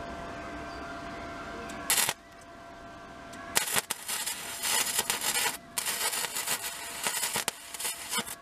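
Flux-core arc welder striking an arc about two seconds in, then welding in runs of harsh crackling from about three and a half seconds on, with two brief pauses. A steady hum with a faint whine runs before the first strike.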